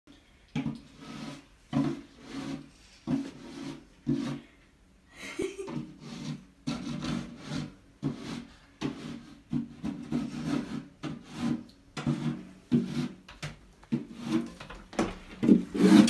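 Snow shovel scraping wet snow and slush off a concrete sidewalk in repeated push strokes, about one a second, each starting with a sharp scrape of the blade on the pavement.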